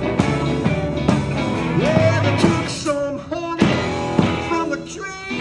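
Live garage R&B band playing, with electric guitars, keyboard and drums.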